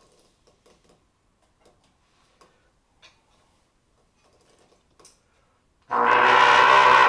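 Faint scattered clicks and ticks, then, about six seconds in, a trumpet starts one loud, steady held note.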